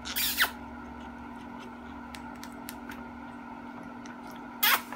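Green-cheeked conure making short, squeaky kiss-smack sounds: one right at the start and another just before the end.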